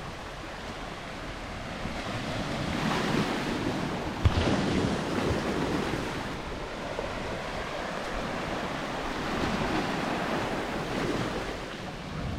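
Small waves washing onto the shore, swelling and easing twice, with wind rushing on the microphone and one brief thump about four seconds in.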